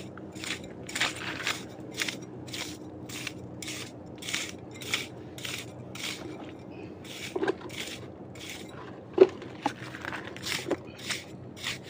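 Footsteps crunching over dry ground at a steady walking pace, about two steps a second, with a few louder knocks near the end.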